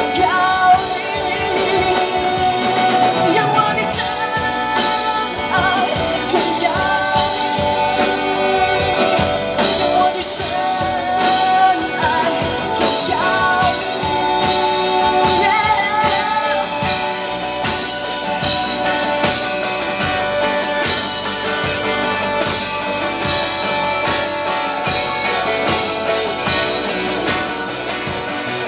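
Live band music: a woman singing over strummed acoustic guitar, electric guitar and drum kit, with the singing clearest in the first half.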